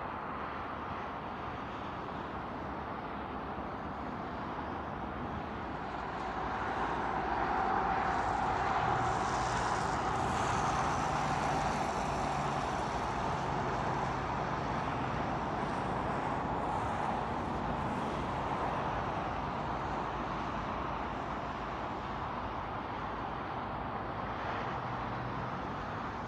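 Distant vehicle traffic noise: a steady rushing with a faint low hum that swells about seven seconds in and slowly eases off toward the end.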